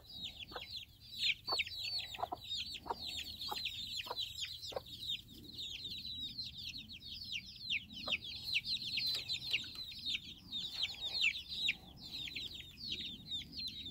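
A brood of chicks peeping constantly in a dense stream of short, high, falling peeps, several a second. Short low clucks from the mother hen come through the first five seconds and once more about eight seconds in.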